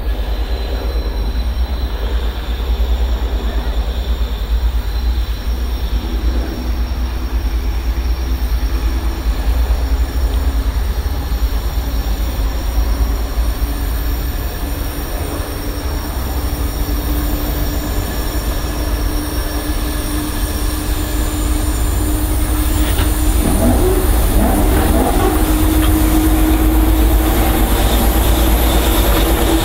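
DR class 241 (Soviet-built "Ludmilla") diesel locomotive hauling a passenger train, its engine drone and the running train growing louder as it approaches. Wheels squeal on the curve about three quarters of the way through.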